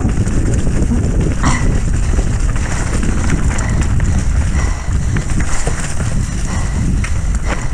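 Mountain bike descending at race speed on a rough trail: a steady rumble of wind on the microphone and tyres over the ground, with the bike knocking and rattling over bumps about a second and a half in and again near the end.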